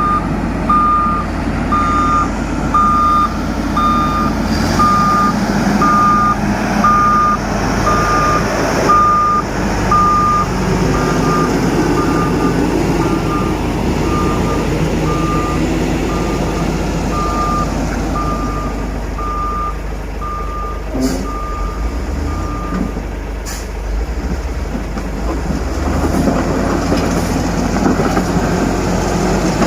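Heavy diesel road-construction machine running while its reversing alarm beeps about once a second; the beeping stops about three-quarters of the way through while the engine keeps running.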